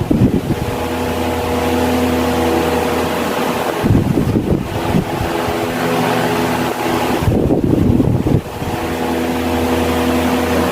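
Britânia/Philco 155 W electric fan running, a steady motor hum with the rush of its blades. About every four seconds a rumbling gust of air buffets the microphone.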